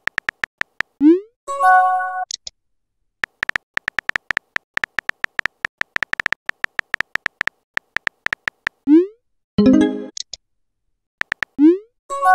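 Chat-app sound effects: quick runs of short electronic key-tap ticks as a message is typed, each run ending in a short rising swoop as the message is sent, followed by a brief chime-like tone. This send-and-chime pattern happens three times.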